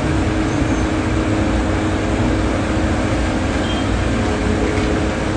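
Steady low rumble of a heavy vehicle's engine idling, with a constant hum over street noise.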